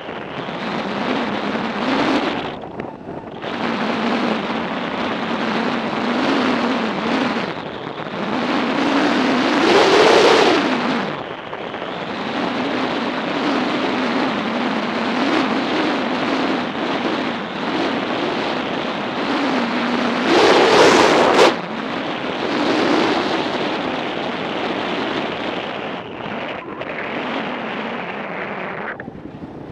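Wind buffeting the microphone of a camera mounted on a moving motorcycle, over the motorcycle's engine note, which rises and falls with the throttle. Two louder rushes come about ten seconds in and again about twenty-one seconds in.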